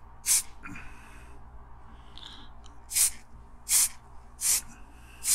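Aerosol spray paint can giving short bursts of white paint, about five quick hisses each lasting a fraction of a second: one near the start, then four in a row, evenly spaced, from about three seconds in.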